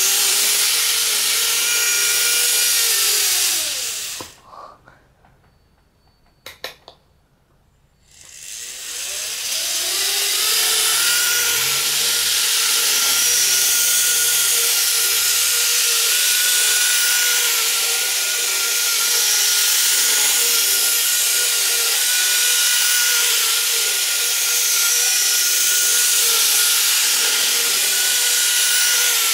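Model 103 series electric trains running on sectional track: a steady motor whine and wheel rattle. The whine falls in pitch and dies away about four seconds in, and a couple of clicks follow. About eight seconds in it winds back up in pitch and then runs on steadily.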